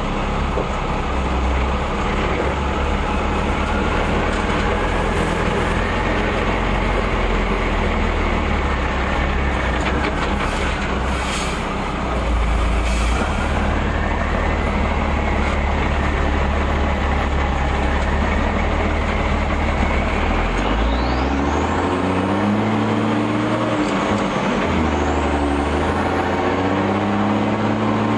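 REO M35 2½-ton military truck running under way off-road, its engine steady and loud with a whining tone that slowly rises and falls. From about 21 seconds in, the engine's note shifts up and down as engine speed changes.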